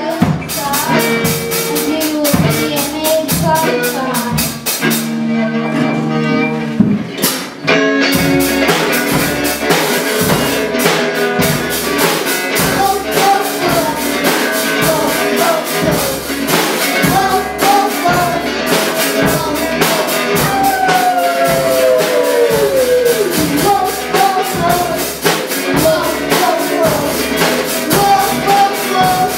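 Children's rock band playing live: a young girl singing lead over drum kit and electric guitar. The drums stop for about two seconds some five seconds in, then the full band comes back in.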